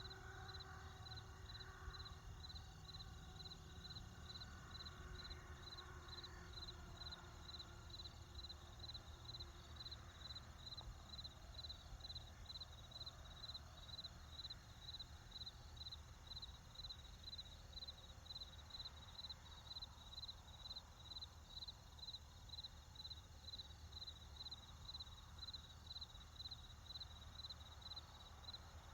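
Cricket chirping in a steady, even rhythm, about two high chirps a second, over the low rumble of distant traffic.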